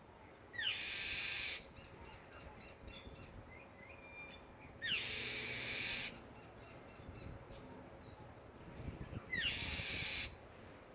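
A bird giving three harsh, screeching cries, each about a second long and each opening with a quick falling whistle, spaced about four seconds apart. Faint rapid chirps are heard between the cries.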